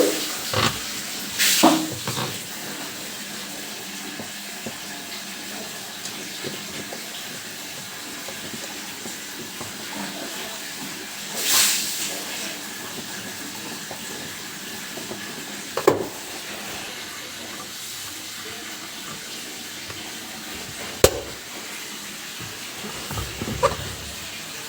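Water running steadily while a washing machine is cleaned, with a couple of short bursts of spray and a few sharp knocks.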